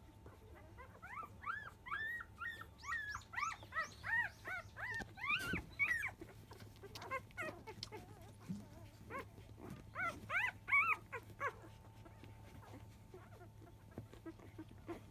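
Newborn Labrador Retriever puppies, five days old, squeaking and whimpering as they nurse. There is a quick run of short, high squeaks from about a second in to about six seconds, then quiet, then another run around ten seconds in.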